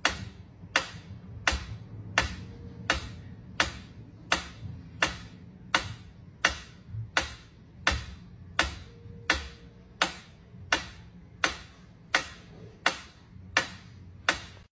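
Mechanical pyramid metronome ticking steadily, its pendulum beating about three ticks every two seconds.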